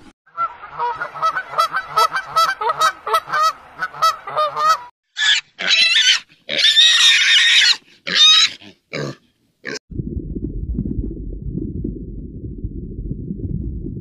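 A fast run of short pitched animal calls, then loud high-pitched pig squeals, several in a row, from about five seconds in. Near ten seconds the calls give way to a steady low rumble.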